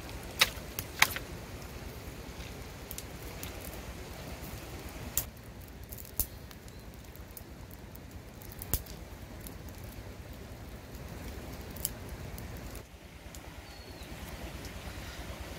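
Steady outdoor background noise broken by a few sharp isolated clicks and snaps, two loud ones about half a second and a second in. In the middle stretch a small twig fire pops now and then.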